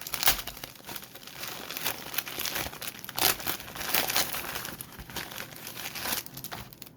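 A plastic packaging bag crinkling and rustling as it is handled and opened, in irregular crackles.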